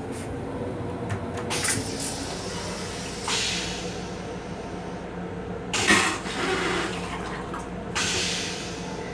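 Stainless-steel railcar toilet in a Metro-North M7 restroom flushing, with water let into the bowl in four short spells about a second apart, the loudest about six seconds in.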